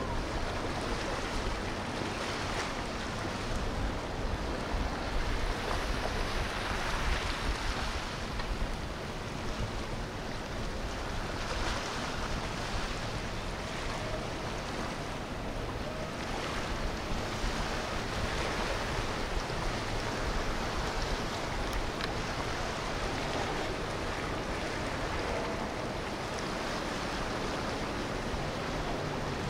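Water washing and sloshing from boat wakes on a river, rising and falling in swells every few seconds, with a faint engine drone from passing boats and wind on the microphone.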